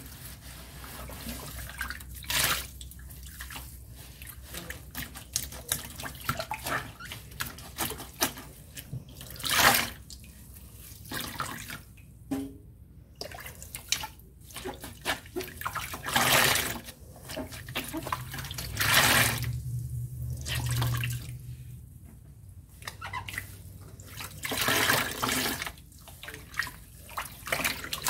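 Foam bath sponges soaked with Ajax cleaning paste, squeezed, wrung and dunked by hand in a sink of soapy water: wet squelching and splashing in irregular louder bursts.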